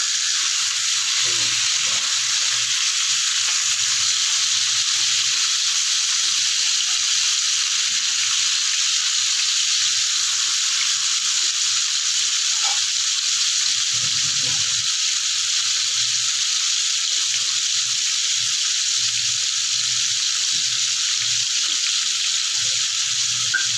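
Marinated chicken pieces sizzling steadily in hot oil in a non-stick frying pan.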